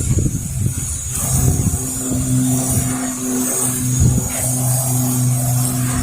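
Gusting wind buffeting the microphone over the hiss of a pressure-washer spray laying down a soft-wash mix. A steady motor hum from the washing rig comes in about a second and a half in.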